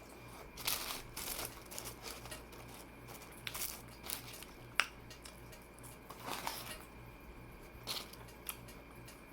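Close-up eating noises: irregular short crackly and crinkling sounds of chewing and handling food, with one sharp click about five seconds in.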